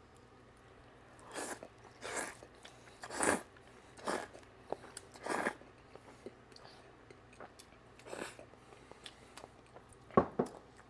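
A person eating a bowl of ramen: a run of short, noisy chewing and eating sounds, about one every second, then a couple of sharp clicks near the end.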